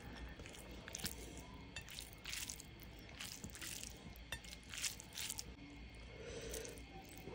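Fingers kneading rice into fish curry gravy on a plate, giving several short, faint wet squishes.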